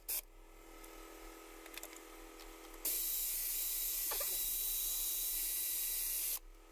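Compressed air hissing through a pneumatic ratchet and its air hose: a steady hiss that starts about three seconds in and cuts off shortly before the end.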